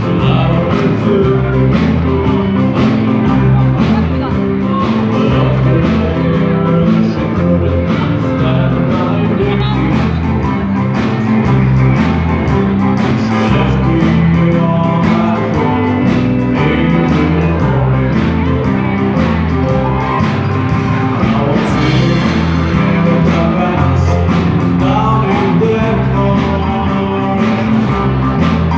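A band playing rock music live: guitar over a stepping bass line with a steady beat, with some singing.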